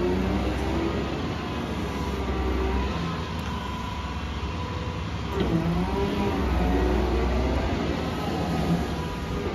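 Cat MH3022 wheeled material handler running, engine humming with hydraulic whine as the boom and grab move; the whine rises and falls in pitch about halfway through and again near the end.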